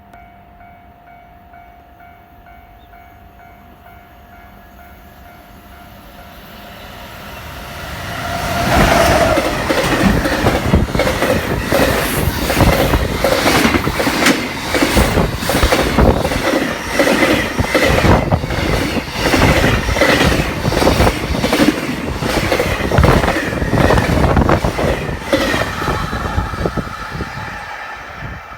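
Level crossing alarm ringing in a steady repeating pattern, then about eight seconds in a JR Freight EF210 electric locomotive and its long string of container flat wagons pass at speed: loud, with a rapid clickety-clack of wheels over rail joints, fading near the end.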